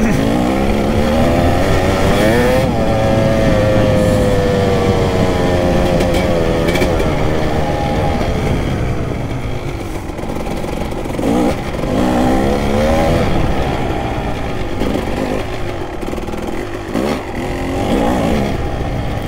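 Kawasaki KX250 dirt bike engine under way, revving up and easing off with the throttle. The pitch climbs steeply in the first three seconds, then falls away, and there are more bursts of throttle around eleven and seventeen seconds in.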